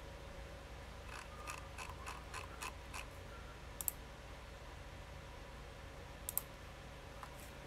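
A quick run of light clicks like computer keyboard keystrokes, then two sharp double clicks a couple of seconds apart, like a computer mouse, over a faint steady hum.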